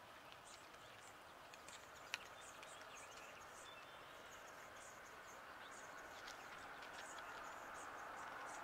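Near silence with faint outdoor ambience: faint high ticks several times a second, a single sharp click about two seconds in, and a faint hiss that slowly grows louder toward the end.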